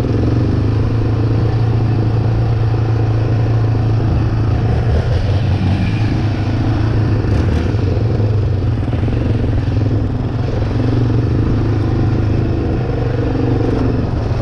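Off-road vehicle engine running steadily, a constant low drone with no pauses.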